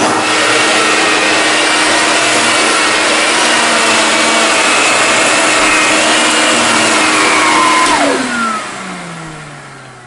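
Electrolux Grand Marquise model 1521 canister vacuum cleaner running steadily with a whine. About eight seconds in it is switched off, and its motor winds down with a falling pitch, fading away.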